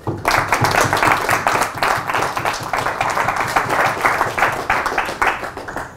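Small audience applauding at the end of a talk. The clapping starts abruptly and dies away near the end.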